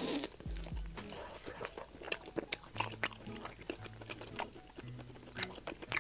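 A person biting into and chewing grilled pork kidney from a skewer, picked up by a close clip-on mic: a bite at the start, then many short sharp mouth clicks and crunches. Soft background music with steady low notes plays underneath.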